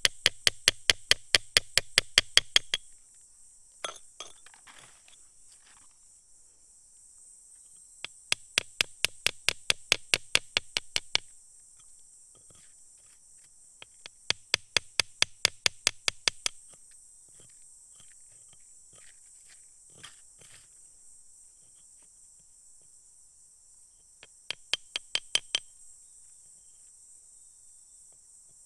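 A small metal chisel tapping rapidly on a blue crystal in rock, making quick sharp clinks in four short runs with pauses and a few faint scrapes between. A steady high insect chirr runs underneath.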